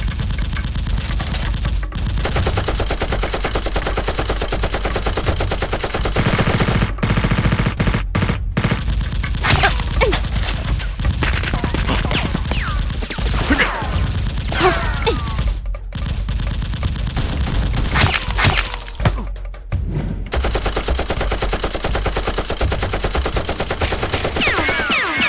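Rapid, continuous bursts of automatic gunfire, sound effects laid over a Nerf battle, broken by a few short pauses.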